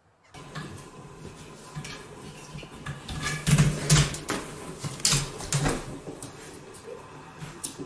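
Knocks, clatter and thumps as cats scramble and climb in a swinging hanging hammock chair, with a dense run of sharp knocks about three to six seconds in.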